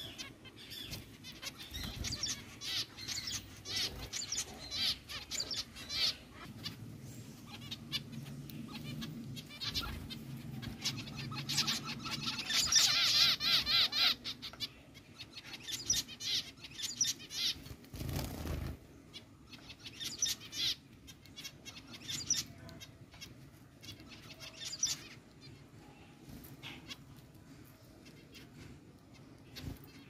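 A flock of zebra finches calling: many short, nasal beeping calls overlapping, densest in a busy stretch a little before the middle, thinning out toward the end. A dull thump a little past the middle.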